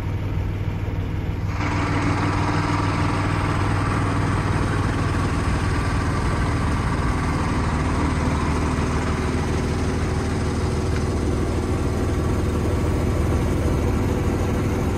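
A boat's engine running steadily with a low hum. About a second and a half in, a loud rushing hiss joins it and carries on.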